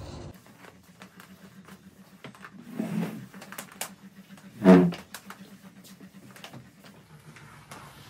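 Steam mop's steady low hum cuts off just after the start, leaving a quiet room with scattered light taps and clicks. Two short louder sounds come about three seconds in and just before five seconds, the second the loudest.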